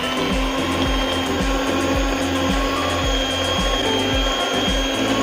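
Electric mixer running at a steady speed with a high, even motor whine, beating butter and powdered sugar into a cream.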